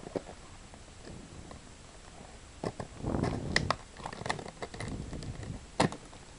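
Stiff clear plastic blister packaging being handled and flexed by hand, crinkling with a string of sharp clicks starting about two and a half seconds in, with one louder snap near the end.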